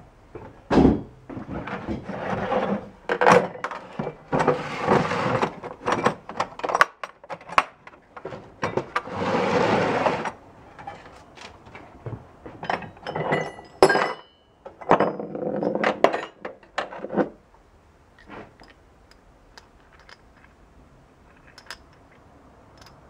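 Hard plastic tool case with steel latches being handled on a wooden workbench: clusters of clicks and thumps as it is moved and its latches worked, with two stretches of about a second of rattling and scraping. In the last few seconds only faint occasional clicks from handling the hole saw arbor.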